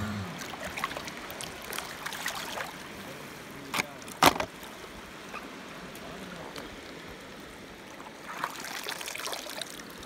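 Shallow sea water washing over sand, a steady hiss, with scattered light clicks of plastic toys being handled. A sharp plastic knock about four seconds in is the loudest sound, likely a toy set down in the plastic truck.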